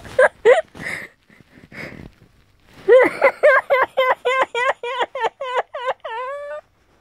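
A woman laughing hard and high-pitched: short giggles, then from about three seconds in a rapid run of 'ha' pulses, about four a second, ending in a longer falling note.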